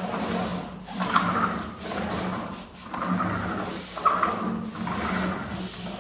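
Hand-held laminate roller rolled hard back and forth over plastic laminate, pressing the fresh sheet down onto its glued door. It makes a rubbing, rumbling stroke about once a second.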